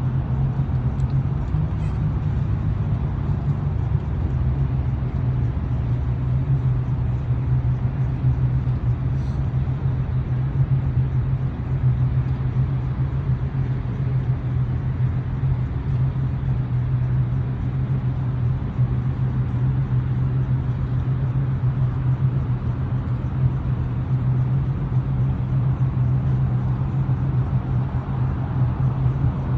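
Boat engine running steadily at low speed, a continuous low hum and rumble.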